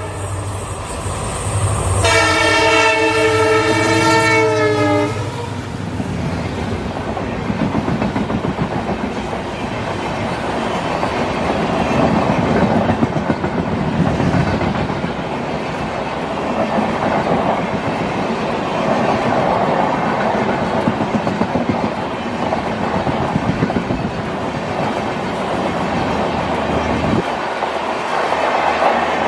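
EMD diesel locomotive horn sounding one blast of about three seconds, starting about two seconds in and sagging slightly in pitch as it cuts off. The train then runs by, its wheels clattering over the rail joints with a steady rumble.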